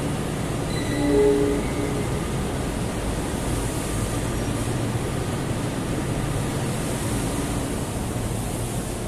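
Steady low rumble of a diesel locomotive idling in the station. About a second in comes a short horn-like tone lasting about a second.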